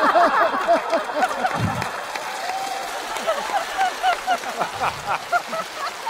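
Studio audience laughing and applauding at a punchline. It is loudest at first and dies down toward the end.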